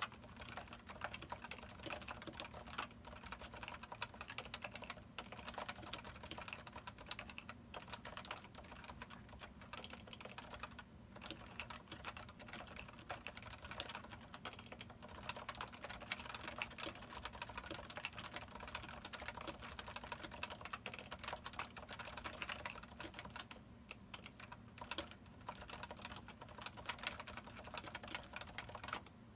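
Continuous fast typing on a Topre Type Heaven 104-key electrostatic capacitive keyboard with 45g rubber domes and unlubricated sliders under ABS keycaps: a dense, unbroken stream of keystrokes.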